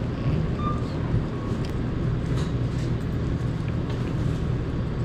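Steady low hum of background noise, with a few faint clicks.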